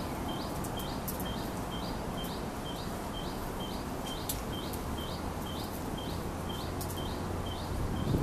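A bird calling over and over, a short rising chirp about twice a second at an even pace, over a steady outdoor background hiss.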